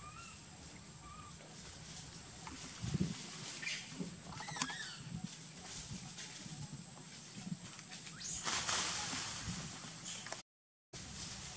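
Outdoor ambience over leaf-strewn ground: a few faint chirps, a short wavering high call about four and a half seconds in, and rustling in dry leaves later on, with a brief dropout near the end.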